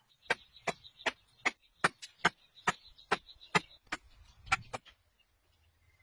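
A quick, even run of about a dozen sharp knocks on bamboo, roughly two and a half a second, stopping about five seconds in. A faint steady high tone sounds under the first few seconds.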